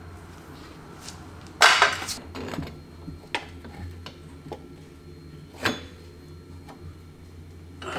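Metal clanks and clinks of a brake rotor and wheel hub being handled and fitted by hand, with one loud ringing clank about a second and a half in and a few lighter knocks after.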